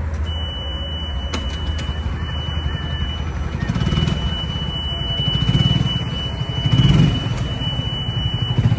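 Golf cart backing up, its reverse warning buzzer sounding one steady high tone from just after the start, over a low rumble of the cart moving.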